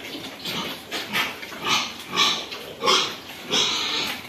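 Sows grunting: about six short calls in a row, the loudest near the middle.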